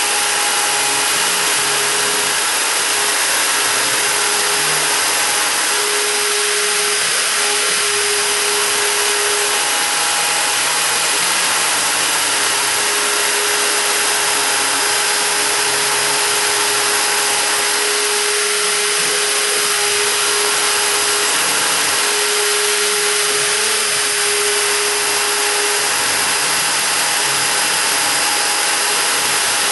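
High-Z S-1000 CNC router's spindle running at 25,000 rpm while a 0.7 mm engraving bit mills a design into a wooden door sign: a steady, even machine noise, with a humming tone that stops and starts every few seconds as the cut goes on.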